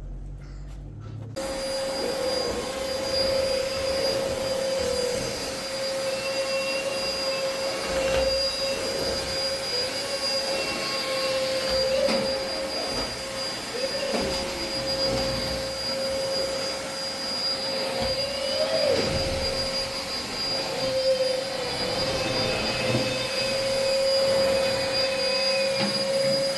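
A motor running steadily with a constant whine, starting abruptly about a second in.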